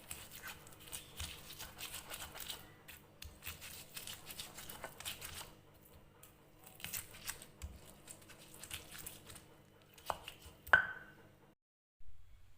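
Hand food preparation: rapid rough scraping and crunching strokes in two runs, then two sharp knocks near the end, the second a loud, briefly ringing clink of a utensil.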